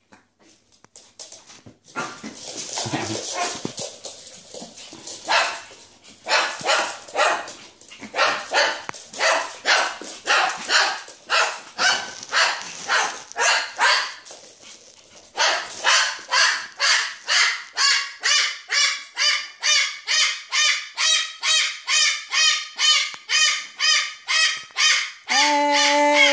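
A dog barking over and over in a steady run of about two to three barks a second, ending with one longer drawn-out bark.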